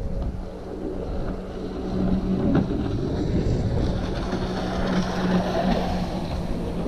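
Jet ski engine running at a steady pitch, getting louder about two seconds in, with wind buffeting the microphone.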